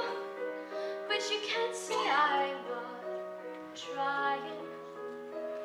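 A young woman singing a slow ballad while accompanying herself on a grand piano. Her voice slides on a note about two seconds in, and the piano moves to a new chord about four seconds in.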